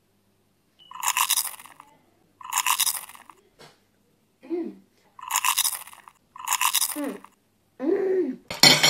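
Loud crunchy chewing of a brownie in four bursts of about a second each, with short vocal sounds from the eater between the later bursts and near the end.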